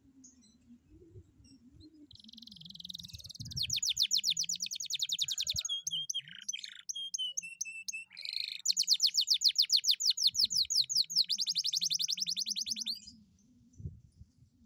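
Canary singing. About two seconds in comes a short buzzy note, then a fast trill of rapidly repeated falling notes, then a brief run of lower whistled notes. A second long, fast trill follows, speeding up before it stops near the end.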